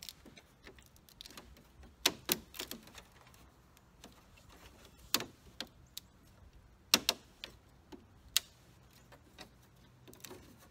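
Aftermarket Audi rings emblem being pushed into a plastic honeycomb grille, its clips snapping in with a series of sharp plastic clicks at irregular intervals.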